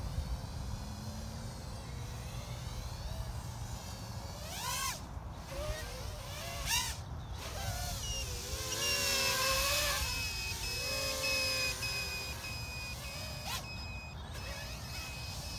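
Small 3-inch FPV quadcopter's 1105 6000kv brushless motors with 3025 props whining, the pitch sweeping sharply up and down with throttle punches around 5 and 7 seconds in, then a steadier high whine from about 8 to 14 seconds in.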